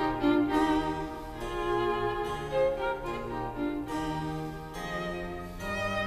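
Background music played on bowed strings, a violin over lower strings, in held notes that change about every half second to a second.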